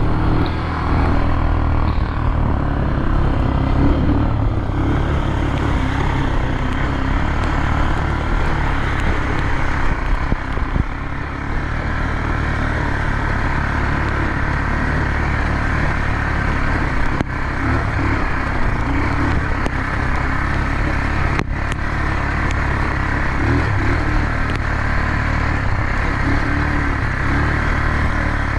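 ATV engine running steadily under way, a continuous low drone with road and wind noise over it.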